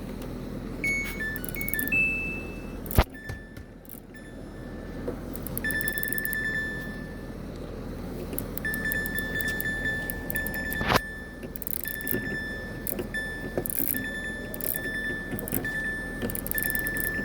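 Washing machine control panel beeping: short beeps at a few different pitches as buttons are pressed, then long runs of one steady high beep broken by short gaps, with two sharp clicks along the way, over a low hum.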